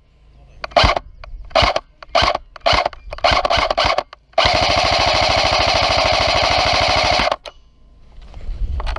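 Airsoft gun firing close by: a series of single shots, then about three seconds of rapid full-auto fire that stops abruptly.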